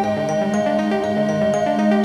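Background music: short repeated high notes over held chords.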